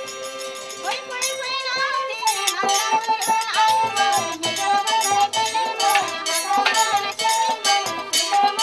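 Rabha folk music for a war dance. A harmonium holds a chord at first, then from about two seconds in a barrel drum and rattles beat a quick, even rhythm under a sung melody.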